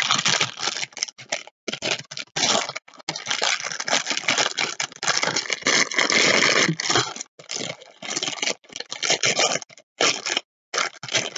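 Clear plastic packaging bag crinkling and rustling as it is handled around a small rubber diamond-painting roller, in irregular bursts with short pauses.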